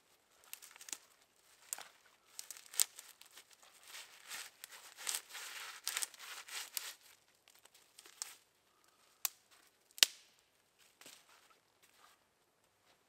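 Branches being handled and broken off by hand: crackly rustling of twigs with sharp snaps, the loudest about ten seconds in.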